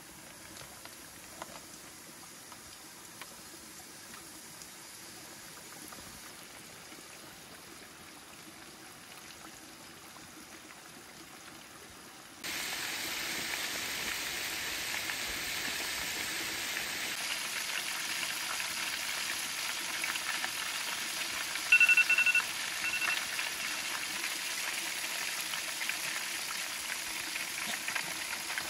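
Chicken pieces deep-frying in a pot of hot oil: a steady bubbling sizzle, faint at first and suddenly louder a little under halfway through. About three-quarters of the way through, two short high beeps sound over it, the loudest thing heard.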